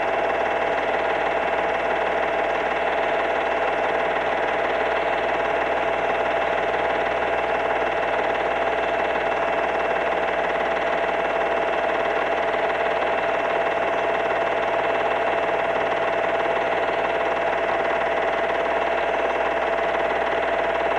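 A steady, unchanging drone: a mid-pitched hum with a fainter higher tone over a bed of hiss, with no pauses or separate events.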